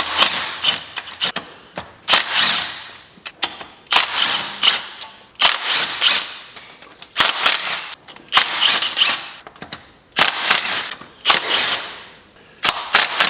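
A wrench working the intake manifold bolts loose on a Cadillac 368 V8, with repeated short bursts of rapid rattling clicks about a second apart.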